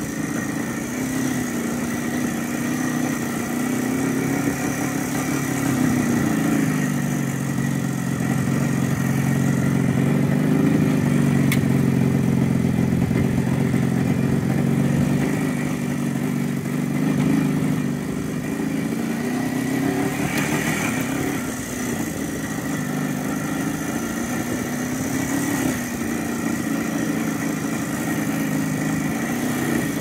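A motor engine running steadily, its pitch rising and easing off gently every few seconds.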